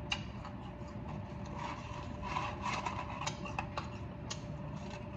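Eating French fries: scattered small clicks and soft crackles of chewing and of a paper fry carton being handled, over a steady low room hum.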